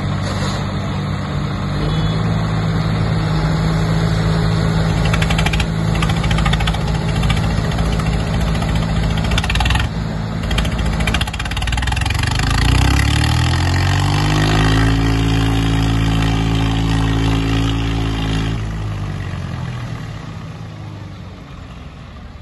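Tractor diesel engine running steadily. About twelve seconds in it revs up to a higher steady pitch, holds there for several seconds, then drops back and fades away near the end.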